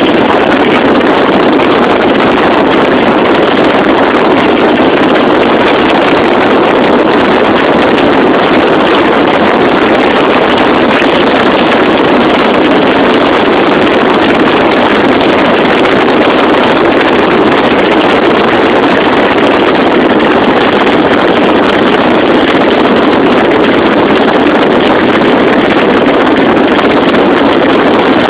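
Loud, steady rushing noise of a car moving at road speed, with wind and road noise swamping a phone's microphone.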